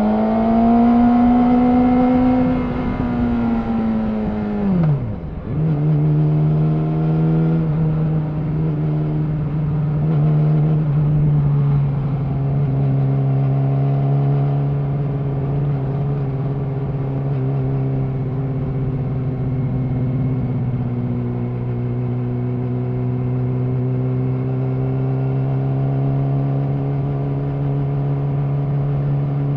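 Yamaha R6's inline-four engine through an Akrapovic slip-on exhaust. It revs up under throttle, then the revs drop sharply about five seconds in, as in a gear change, before it settles into a steady, even note while cruising.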